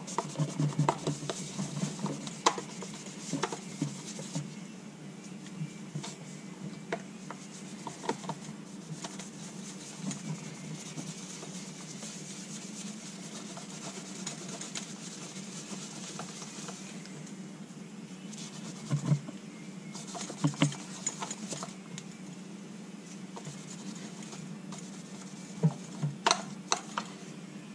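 A microfiber cloth rubbing and wiping across a small plastic-framed solar panel, in soft hissing strokes, with scattered light clicks and knocks as the panel is handled. A steady low hum runs underneath.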